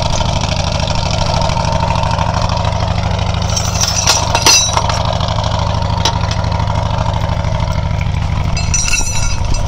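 Tow vehicle's engine idling steadily close by, with a few metal clinks from tow chains and hooks being handled about four seconds in.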